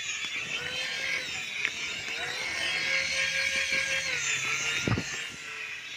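Small electric motors of a coaxial-rotor RC toy helicopter whining steadily as the rotors spin and it lifts off and flies. A sharp knock near the end.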